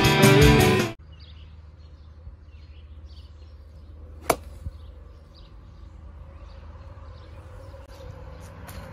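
Rock guitar music cuts off about a second in. About four seconds in, a golf club strikes a foam golf ball off a turf hitting mat with one sharp click. Faint outdoor background with small chirps runs underneath.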